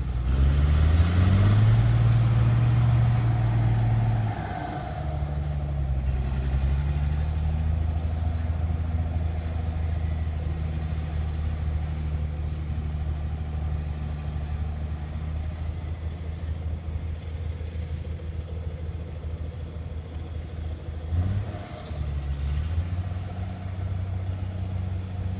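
Heavy diesel engine of road-building machinery running. It revs up at the start and runs hard, eases off about four seconds in, runs steadily, then dips briefly and picks up again near the end.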